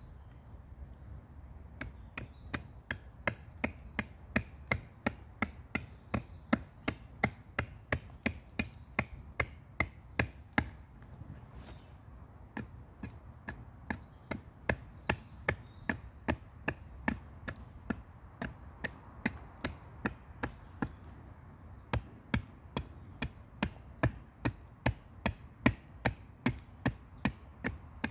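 Short-handled carving tool chopping into a wooden bowl blank on a chopping stump: a steady run of sharp wooden strikes, about two a second, broken by two short pauses about a third and two-thirds of the way through.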